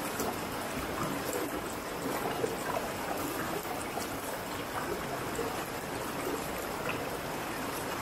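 Shallow river running over rocks and gravel riffles: a steady rush of flowing water.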